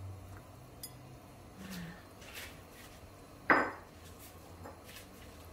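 Kitchen clatter as cubes of white radish are dropped from a ceramic bowl into a stainless steel pot of broth: a few light clinks, then one sharp knock about three and a half seconds in.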